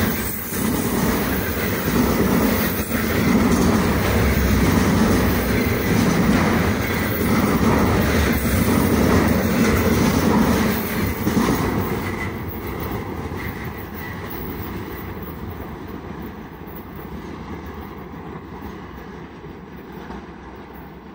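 Loaded container wagons of a long freight train rolling past close by, steel wheels on the rails making a steady heavy rumble with faint knocks. About twelve seconds in the last wagon goes by and the rumble fades steadily into the distance.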